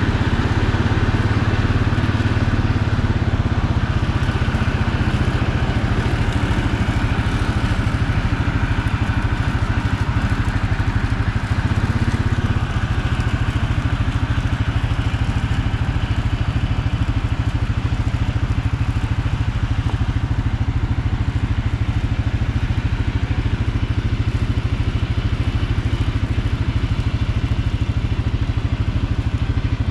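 A vehicle engine running steadily at constant speed. The low drone eases slightly about twelve seconds in.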